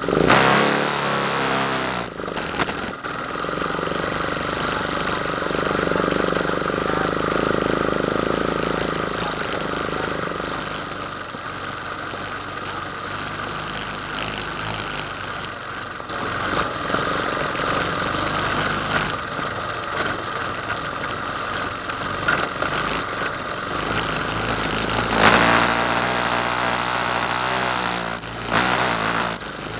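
ATV engine running under way, its pitch rising and falling a few times near the start and again in the last few seconds.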